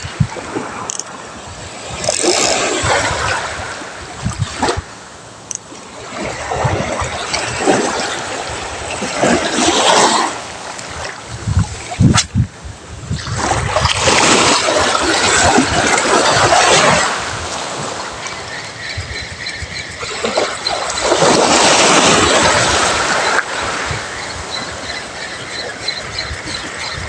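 Sea waves washing onto the shore, swelling and fading every few seconds, with a single sharp click about twelve seconds in.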